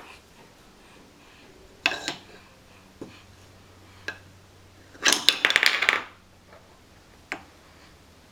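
Wooden stacking-toy rings knocking against each other, the wooden peg and a hardwood floor as they are handled: a few single clacks, then a second of rapid clattering about five seconds in, and one more knock near the end.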